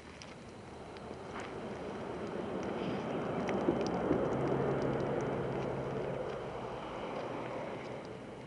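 A motor vehicle passing by: a broad rumble that swells over a few seconds, peaks about halfway with a brief low engine hum, then fades away.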